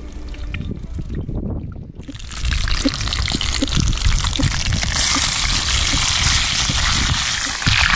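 Pieces of fish going into a pan of hot oil and frying with a loud sizzle; the sizzle starts about two seconds in and grows louder about five seconds in.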